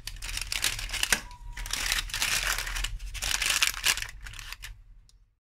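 Baking paper crinkling as it is pressed and smoothed into a springform cake tin, in two long stretches with a short pause about a second in, fading out near the end.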